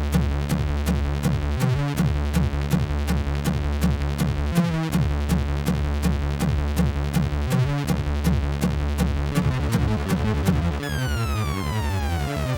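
Electronic synthesizer background music with a steady fast beat over held bass notes; falling synth sweeps come in near the end.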